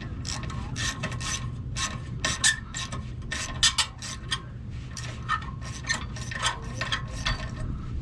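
Irregular metal scraping and clinking of tools against the steel mounting of an RV's rear stabilizer jack while it is being unscrewed and removed. Some strokes ring briefly. A steady low hum runs underneath.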